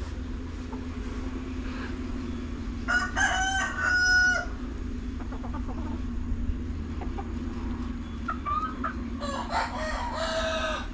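A rooster crows twice, about three seconds in and again near the end, each crow ending on a long held note, with hens clucking between. A steady low hum runs underneath.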